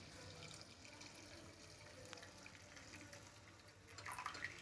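Faint pouring of cold water from a brass jug into a steel pot of freshly curdled milk, the step that cools the curds for paneer.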